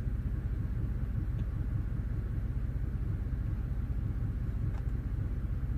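Truck engine idling: a steady low rumble.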